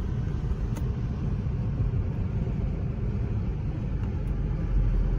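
Steady road and engine rumble inside the cabin of a Kia car driving along a road.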